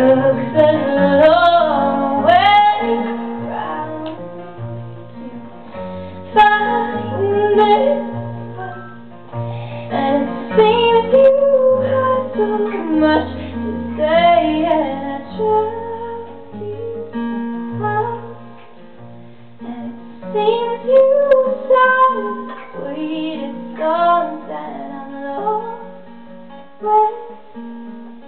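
Live acoustic music: two acoustic guitars strummed and picked, with a woman singing a wordless melody line over them.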